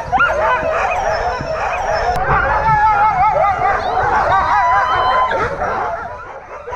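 A pack of harnessed sled dogs, mostly huskies, yelping, whining and howling all at once in many overlapping, wavering cries: the excited clamour of a team on the gangline, eager to set off.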